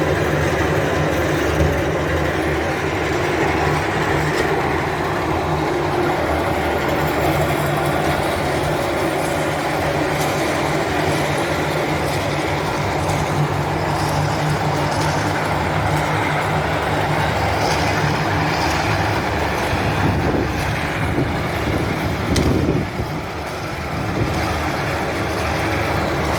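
Komatsu WB97-S backhoe loader's diesel engine running, driving a QST3000D hydraulic chain saw attachment: a steady, loud mechanical din with a rattling chain, briefly dropping in level a few seconds before the end.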